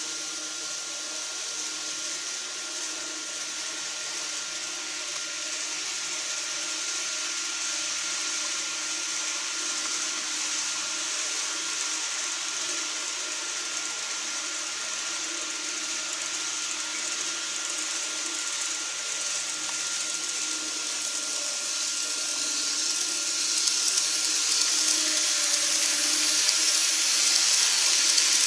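Model train running on the layout: a steady rolling hiss with a thin steady whine. It grows louder over the last several seconds as a KATO 321 series model train approaches along the track and passes close.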